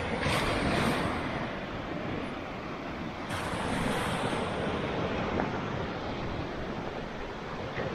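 Ocean surf breaking and washing ashore while strong wind buffets the microphone, rising in two surges: one in the first second and one about three seconds in.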